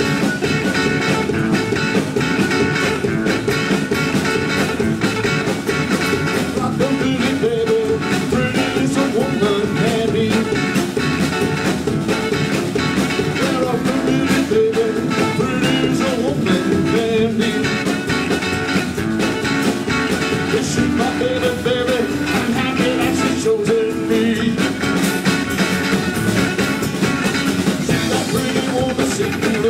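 A rock-and-roll band playing live, with acoustic guitar, hollow-body electric guitar and drum kit, and a man singing lead.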